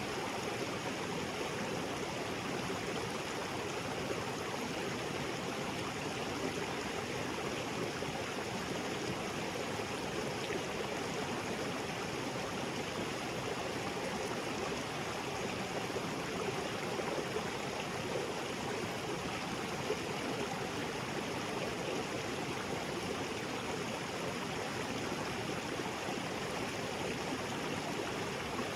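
Small waterfall spilling into a rocky creek: a steady, even rush of falling and flowing water.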